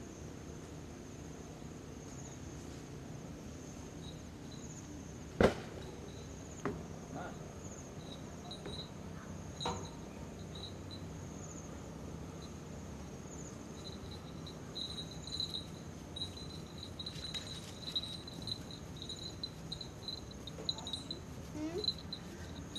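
Insects chirping steadily in high, pulsing trills, growing busier in the second half. A single loud sharp knock sounds about five seconds in, with a few softer knocks after it.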